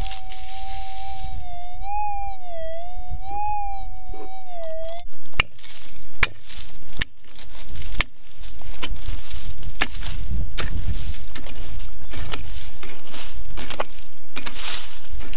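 Minelab GPZ 7000 metal detector's steady threshold hum, which rises and wavers in pitch twice as it sounds off over a buried target, then stops about five seconds in. After that, a pick strikes the ground hard four times about a second apart, followed by many lighter knocks and scrapes of digging. Wind rumbles on the microphone throughout.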